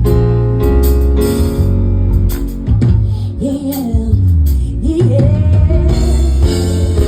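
Live music with a heavy bass line and drum kit, a singer's voice sliding through a drawn-out "yeah" in the middle.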